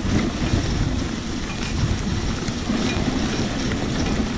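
Dog sled gliding over packed snow behind a running team of Siberian huskies: a steady rushing noise of the runners on snow and wind on the microphone.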